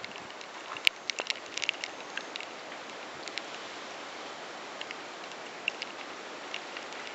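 Water dripping and spattering outdoors, a steady rain-like hiss with scattered sharp ticks of drops hitting hard surfaces, most of them in the first couple of seconds.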